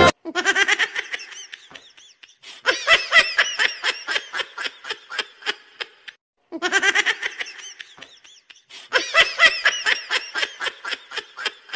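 Laughter in four long bursts of rapid ha-ha pulses, with short pauses between them.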